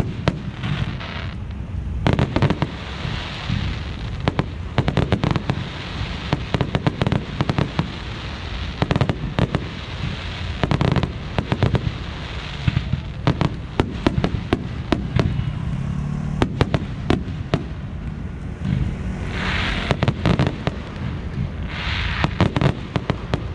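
Fireworks display: aerial shells bursting in rapid succession, with many sharp bangs and crackling between them.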